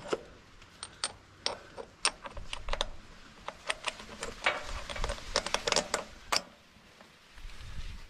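Irregular metal clicks and clinks of a UMC CX drive-shaft coupler being handled and fitted onto a center pivot gearbox's output shaft. They stop about six and a half seconds in.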